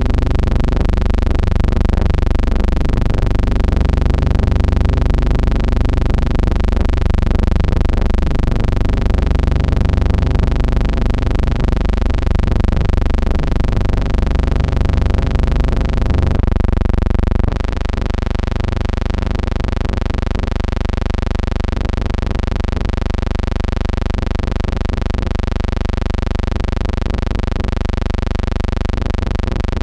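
A loud, steady buzzing hum with many overtones, changing its tone slightly about seventeen seconds in.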